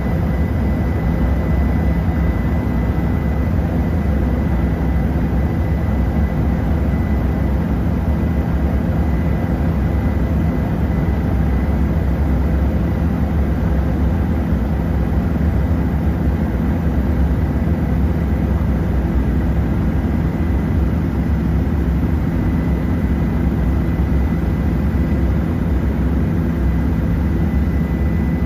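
Tour helicopter's turbine engine and rotor heard from on board: a steady, loud, unchanging drone with a thin steady whine above it.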